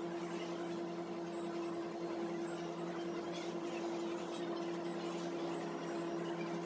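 Steady mechanical hum with a constant low tone, the running of a fan or motor in a shoe repair workshop, with faint brushing as contact cement is painted onto a shoe insole.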